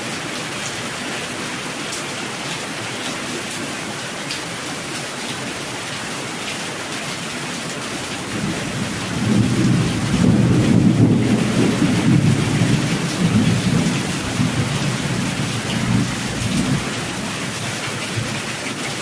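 Steady rain, with a long rolling rumble of thunder that builds about eight seconds in, is loudest a couple of seconds later, and fades out near the end.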